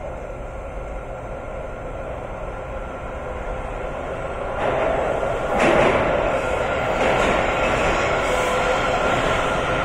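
WMATA 7000-series Metro train approaching through the tunnel and pulling into an underground station. Its rumble grows louder about halfway through, then holds steady as the train comes alongside the platform.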